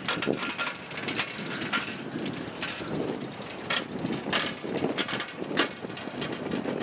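Bicycles rolling over a rough, patched road: a steady rattling rumble from tyres and frames, broken by several sharp knocks and clatters as the bikes jolt over bumps.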